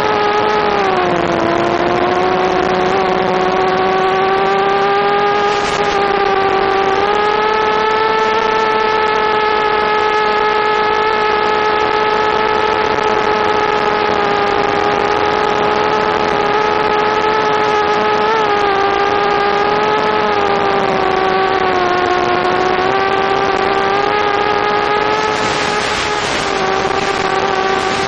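Mini quadcopter's Suppo brushless motors and propellers whining steadily in flight, the pitch dipping and rising a little as the throttle changes. Near the end, a burst of hissing static swells as the analog video link breaks up.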